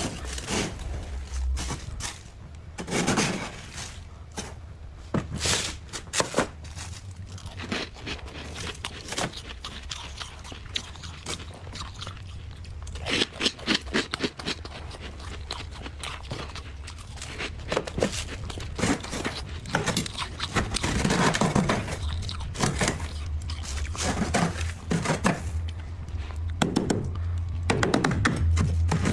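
Thick freezer frost being scraped, chipped and crunched with a blade and a cleaver and dug out by hand: irregular scrapes, crunches and dull knocks that come in clusters.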